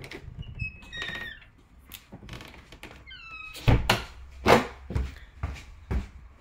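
Footsteps on a wooden staircase: a run of heavy thuds starting about three and a half seconds in, the first two loudest. Before them come a few short high-pitched squeaks.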